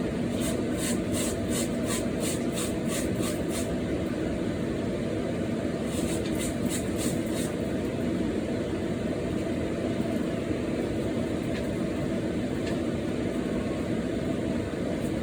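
A steady low rumbling noise, like a running fan, with a run of quick high ticks at about three a second near the start and a shorter run about six seconds in.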